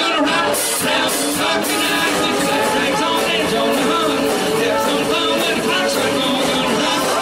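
Live band playing 1950s-style rock and roll: two women singing over drums with regular cymbal hits, guitar, keyboard and a trumpet.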